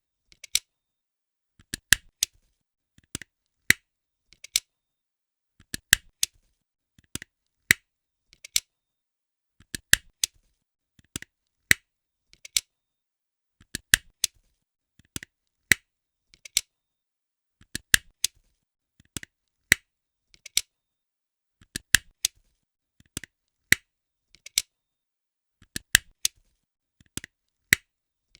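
Office stapler pressed over and over, each stroke a quick cluster of two or three sharp metallic clicks, repeating steadily about every second and a third.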